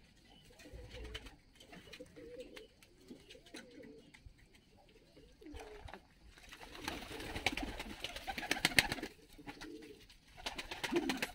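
Domestic fighting pigeons cooing softly in a loft. About six seconds in comes a couple of seconds of quick rustling and clattering, the loudest part, and then the cooing resumes.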